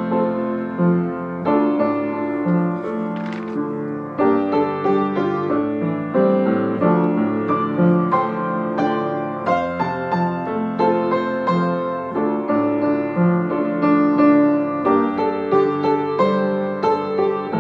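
Piano playing a song accompaniment in a steady rhythm of repeated chords over a moving bass line.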